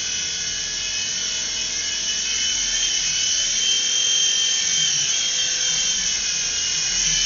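Small electric remote control helicopter in flight: its motor and rotor make a steady high whine whose pitch wavers slightly.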